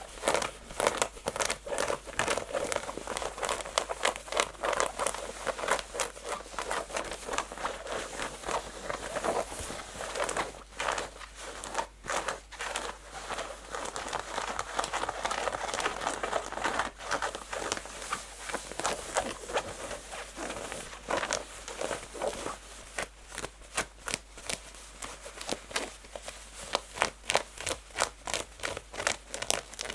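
Natural fingernails scratching fast and hard on textured denim jeans, a dense run of quick rasping strokes, with sharper, louder strokes near the start and over the last few seconds.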